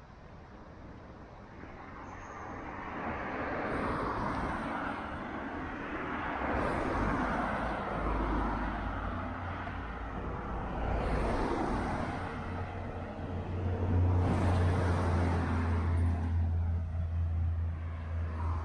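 Road traffic: several cars pass one after another, each swelling and fading as it goes by, with a low engine hum that grows stronger from about halfway.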